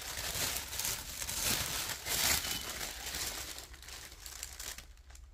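Tissue paper crinkling and rustling as it is handled and laid over a paper card, with irregular rustles that die away near the end.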